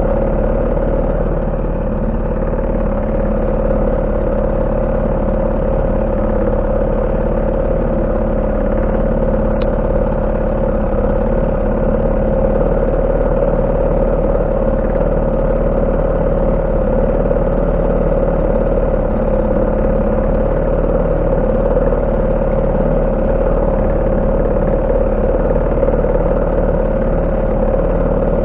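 HDX 3.6 hp two-stroke outboard motor running at a steady speed, driving a rowing boat along.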